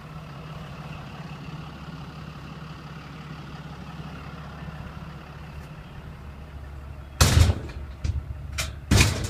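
A Cummins diesel truck engine idling with a steady low hum. Two loud short thumps come near the end, about two seconds apart.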